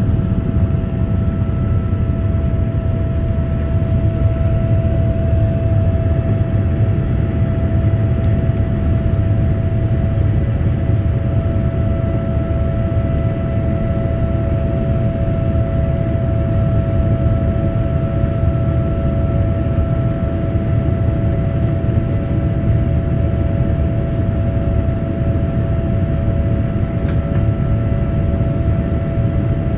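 Cabin noise inside a Boeing 787-9 during its climb after takeoff: the steady low rumble of its GEnx-1B turbofan engines and airflow, heard from a seat beside the engine, with a steady whining tone over it.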